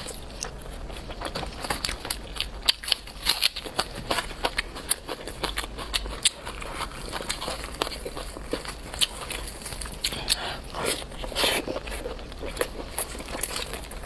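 Close-up eating sounds: chewing and biting into a chili-spiced whole chicken, with many sharp, wet clicks and crackles. The meat is torn apart by hand.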